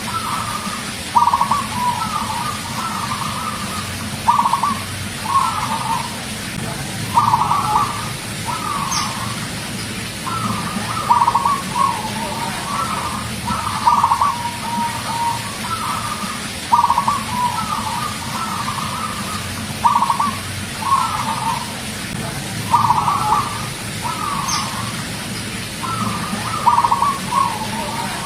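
Zebra dove (perkutut) cooing in full song: a short phrase of rolling coo notes about every three seconds, over a steady low background hum.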